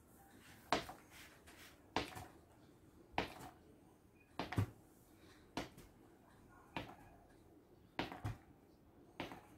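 Tennis ball on a braided rope toy knocking against a hard tile floor as it is swung and dropped, a sharp tap roughly once a second, about eight in all.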